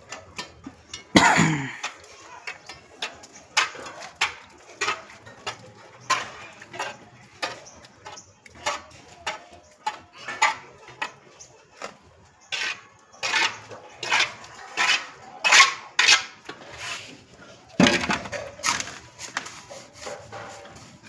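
Plastering work: irregular metal clinks and knocks of a mason's trowel working cement mortar, striking a metal mortar pan. Two louder, longer knocks come about a second in and again near the end.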